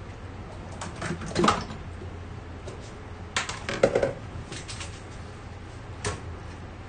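Kitchenware clattering: short knocks and scrapes of a utensil against a metal pan and a plastic container, in three brief bursts about a second in, between three and four seconds, and near six seconds, over a steady low hum.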